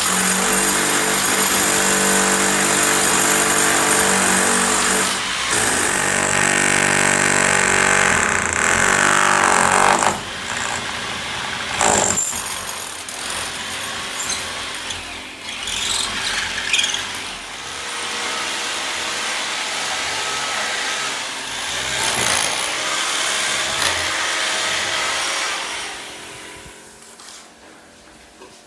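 Power drill running: a steady, loud whir for about the first ten seconds, then in shorter, uneven runs that grow quieter and stop near the end.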